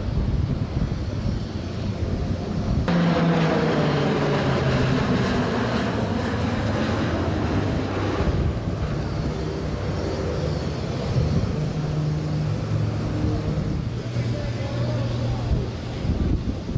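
Turboprop engines of a formation of KAI KT-1B Woongbi trainer aircraft flying past. About three seconds in the sound jumps louder and the engine drone falls in pitch as the aircraft pass, then it settles into a steady drone.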